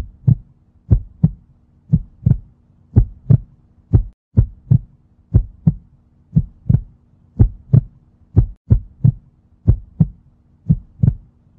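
Heartbeat sound effect: deep paired thumps, two close together about once a second, over a faint steady low hum.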